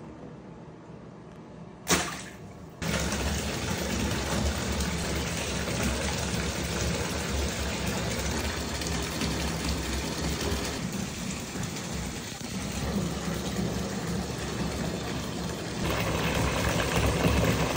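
A single sharp clack about two seconds in, then a bathtub spout running steadily into a filling tub of foamy water, a little louder near the end.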